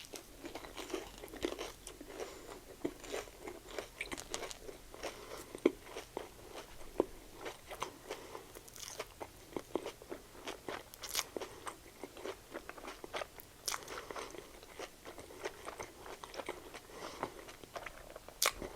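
Close chewing and crunching of a cinnamon-sugar Korean corn dog's fried batter: many irregular short crunches.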